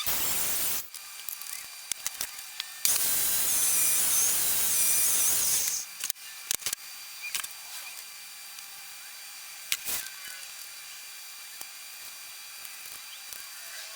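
Power saw cutting wood panels: a short burst at the start, then one steady cut of about three seconds, followed by scattered knocks and clicks as the boards are handled.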